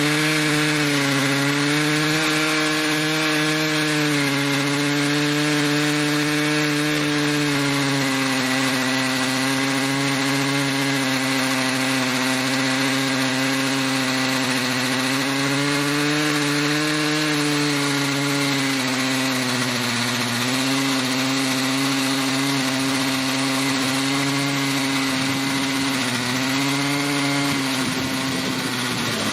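Stihl MS880 two-stroke chainsaw running at steady high revs, ripping a slab lengthwise through a red oak log on an Alaskan chainsaw mill. Its pitch sags a little now and then as the cut loads it.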